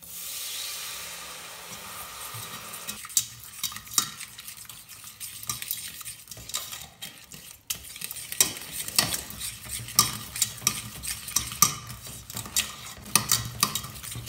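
A wire whisk beating a thick butter-and-flour roux in a stainless steel pot, clicking and scraping against the pot's sides and base. A hissing sizzle in the first few seconds comes as the first splash of milk hits the hot roux.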